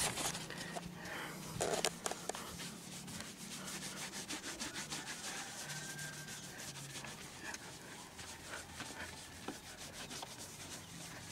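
Hand rubbing scratch-remover compound into car paint with a sponge pad, a steady run of quick back-and-forth scrubbing strokes, with a single louder bump a little under two seconds in.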